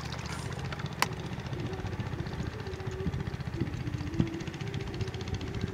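A steady, low, evenly pulsing mechanical drone like a running engine, with a faint wavering hum above it. Two sharp clicks come through, about a second in and again just after four seconds.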